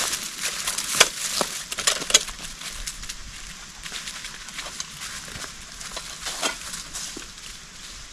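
Dry wood cracking and snapping in a run of irregular sharp cracks, the loudest about a second in and twice around two seconds in.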